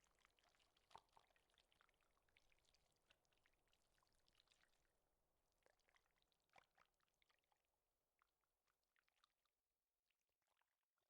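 Near silence, with faint scattered wet clicks that thin out and die away near the end.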